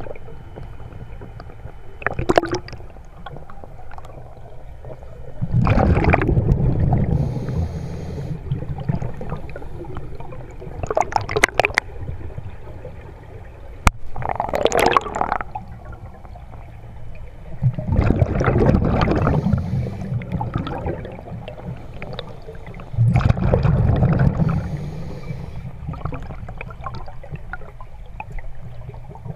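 Underwater scuba breathing through a regulator: bursts of exhaled bubbles gurgling every four to six seconds, some deep and rumbling for a second or two, others shorter and higher.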